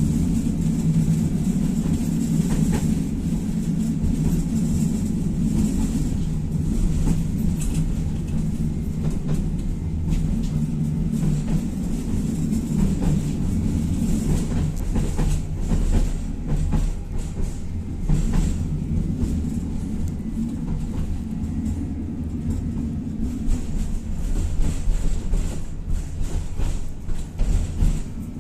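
Tatra-Yug K1M tram running along the track, heard on board: a steady low rumble with a hum from the drive, and short knocks from the wheels over the rails that come more often in the second half.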